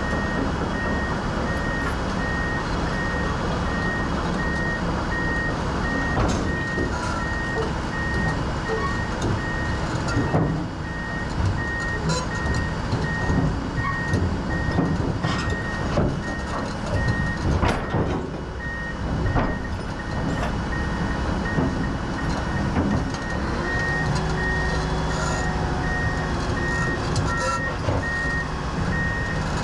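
Vehicle backup alarm beeping steadily at one pitch over a running diesel engine, with occasional knocks and clanks.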